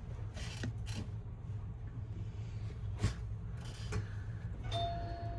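Small clicks and rubbing from fingers and tools working an iPhone's LCD flex-cable connector, a few separate ticks over a steady low hum. Near the end a steady electronic tone starts and holds for about a second.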